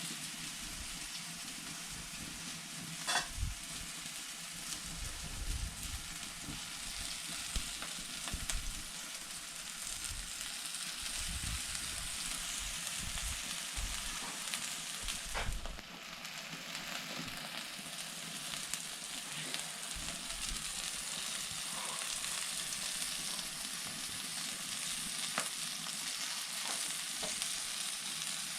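Food cooking in a pot: a steady sizzling hiss, broken a few times by short knocks of a utensil against the pot, the strongest about three seconds in.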